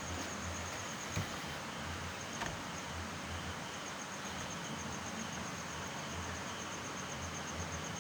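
Steady background hiss with a faint, fast, high-pitched pulsing chirp, about six pulses a second, typical of an insect chirping. Two small clicks about one and two and a half seconds in.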